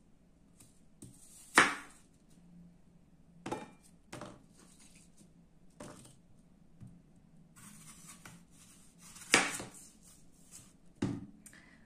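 Kitchen knife cutting apples on a wooden cutting board: sharp, irregular knocks of the blade against the board, with a stretch of scraping shortly before the loudest knock near the end.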